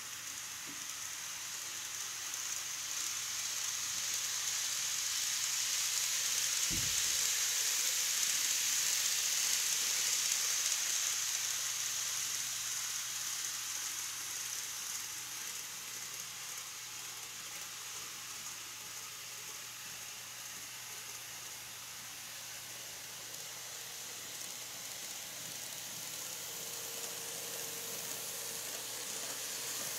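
N-scale model trains running on the layout's track: a steady hissing rolling noise of wheels on rail that swells and fades as trains pass, with a faint motor hum in the last few seconds as a train runs by on the lower track. One low thump about seven seconds in.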